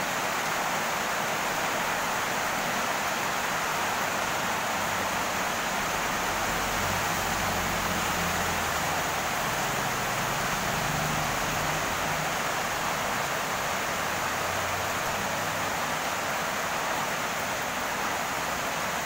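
Heavy rain pouring down, a steady, even hiss. A faint low rumble rises and fades in the middle.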